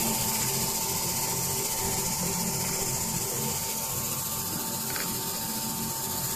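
Corona treatment machine running: the electrode's corona discharge gives a steady high hiss, with a thin steady whine and a low hum underneath.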